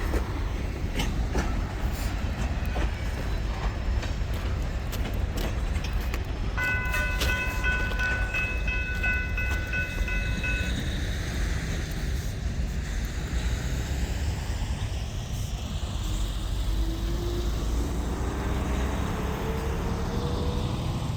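Freight train with EMD SD40-2 diesel locomotives rolling away, a steady low rumble with wheel clicks over the rail joints. About a third of the way in, a multi-chime locomotive horn sounds one held chord for about four seconds.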